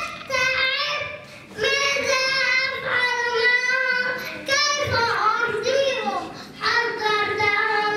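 A young girl singing solo into a handheld microphone in long, wavering held phrases, with short breaths between them.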